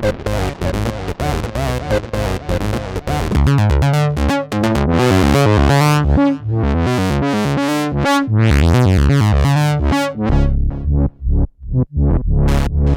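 Roland SE-02 analog monophonic synthesizer playing a fast rhythmic sequence of short notes. In the middle the filter opens and the notes turn bright for several seconds, then near the end the sound drops back to low bass notes.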